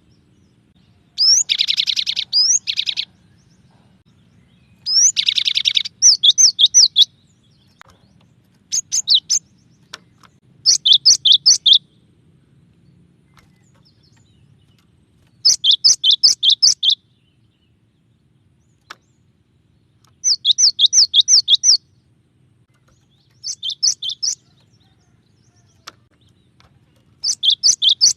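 Cinereous tit (glatik batu) singing: short phrases of four to seven quick, high, down-slurred whistled notes, repeated a few seconds apart. The first two phrases carry a harsh buzzy rasp.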